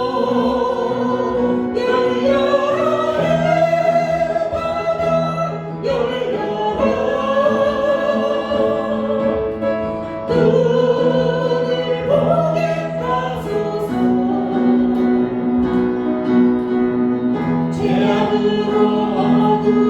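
Church worship singing: a group of voices singing a Korean praise song, holding long wavering notes over a steady instrumental accompaniment.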